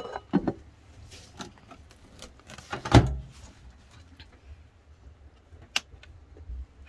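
Handling a microwave oven: a clear plastic microwave cover set over a bowl with a few light knocks, then a single loud thump about three seconds in, and a sharp click near the end.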